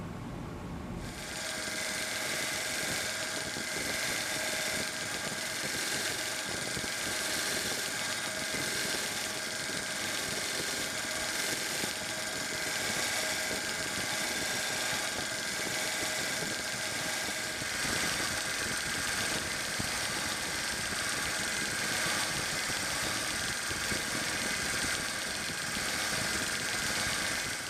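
Small 1x30 bench belt sander running with a non-woven conditioning belt while a metal screwdriver ferrule is held against it: a steady motor hum and belt hiss with a few held tones, starting about a second in and cutting off just before the end.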